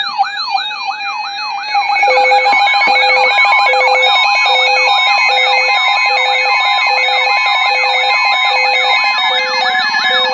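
Several weather alert radios sound their alarms together for a severe thunderstorm warning, making overlapping siren-like rising and falling sweeps about three a second. About two seconds in, a louder second sweeping alarm and a short, low beep repeating about twice a second join in.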